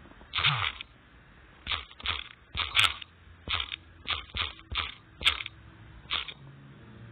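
Typing on a phone's on-screen keyboard: about a dozen quick, irregular taps, one per letter.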